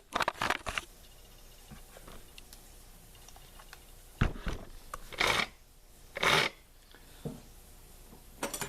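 Hand tools working on a 1979 Homelite XL chainsaw as a tight fastener is loosened. There are a few clicks at first, a knock about four seconds in, and two short scraping sounds about a second apart.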